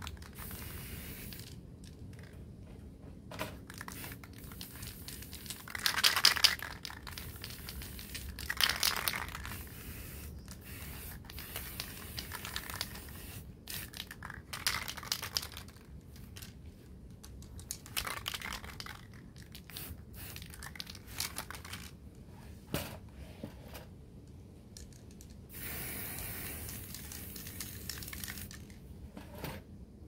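Aerosol spray-paint can hissing in several short bursts and one longer spray of about three seconds near the end, as paint is sprayed onto a metal bird-cage base tray; occasional light clicks and knocks between the bursts.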